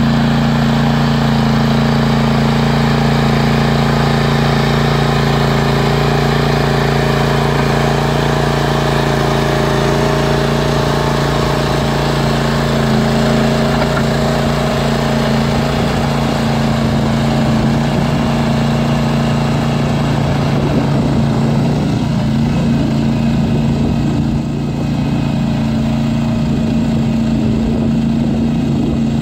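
Tracmaster 740 two-wheel tractor's engine running steadily under load as it drives a 75 cm power harrow through tilled soil, with a brief dip in level near the end.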